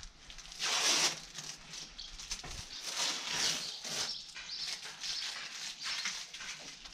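Rustling and scraping of a carpet-covered cardboard tube being handled and shifted on a workbench, with a louder swish about a second in and a few small ticks.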